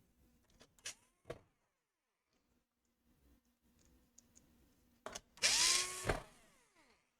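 A few light clicks, then a small electric screwdriver spins up and runs for about a second, winding down after driving a screw into a laptop's bottom cover.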